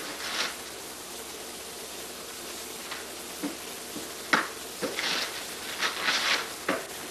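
Wrapping paper and tissue paper rustling and crinkling as a gift box is opened, with a few sharp knocks, busier in the second half, over a steady hiss.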